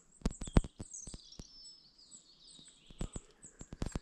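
Dry twigs and forest litter crackling close by in a string of sharp, irregular snaps, with birds chirping between about one and two and a half seconds in.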